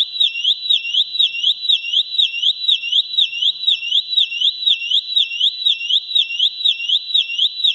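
Synthesized electronic alarm siren: a high-pitched tone warbling rapidly up and down in pitch, about four swoops a second, repeating without a break.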